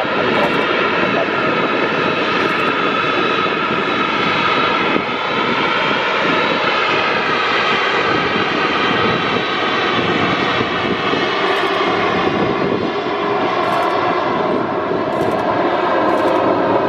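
Boeing 737-800's CFM56 jet engines running on the ground: a steady, loud jet noise with a layered whine.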